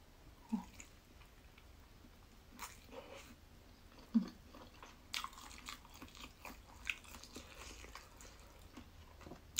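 Close mouth sounds of biting into and chewing a piece of vegetarian mock grilled chicken made from tofu. Scattered soft clicks and crackles run through it, busiest from about five to eight seconds in.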